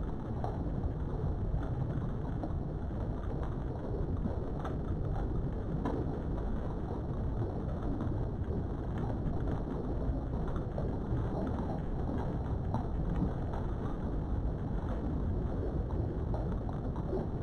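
Steady low rumbling background noise with faint scattered clicks.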